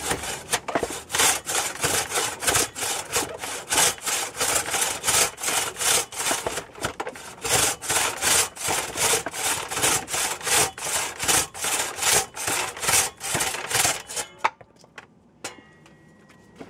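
Freshly sharpened Spear and Jackson crosscut logging saw cutting through a log, worked to and fro by one person in quick, even strokes, about two to three a second, cutting cleanly. The strokes stop about fourteen seconds in as the cut goes through, followed by a few faint knocks.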